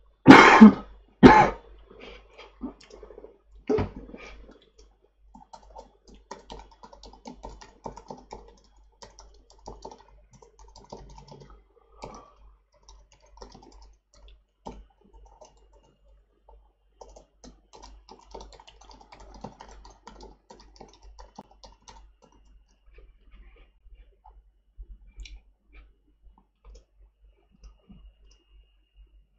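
A man coughs loudly twice at the start and once more, more softly, a couple of seconds later. Then typing on a computer keyboard follows, in spells of quick key clicks.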